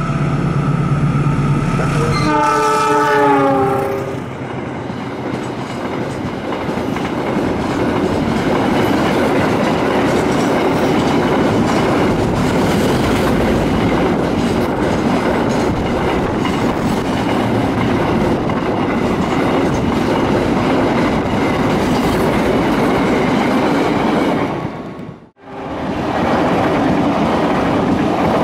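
Diesel locomotive sounding its multi-tone horn as it passes, the horn's pitch dropping. A long container freight train then rolls by with steady wheel noise and clickety-clack. About 25 seconds in, the sound cuts out for a moment and is followed by a different train's running noise.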